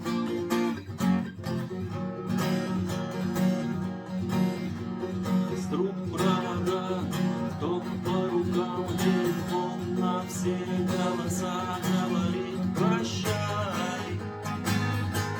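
Acoustic guitar strummed in a steady chord rhythm, with a higher melody line gliding over it from about six seconds in.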